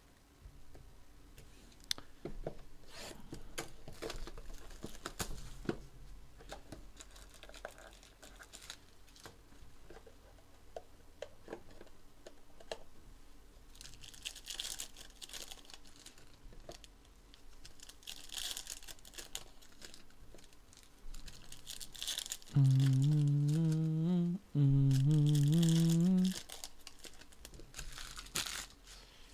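Hands rustling, crinkling and tearing open foil trading-card pack wrappers, with scattered clicks of cards and packs being handled. About three-quarters of the way in, a man hums two long notes, each rising in pitch, louder than the rustling.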